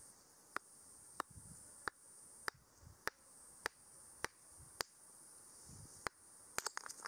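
A steady series of sharp taps or knocks, about one every 0.6 seconds, with a quick flurry of them near the end, over a steady high insect drone.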